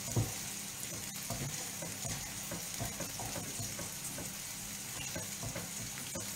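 Courgette pieces sizzling steadily as they sauté in a frying pan, with soft, irregular knocks of a knife cutting salmon on a wooden chopping board.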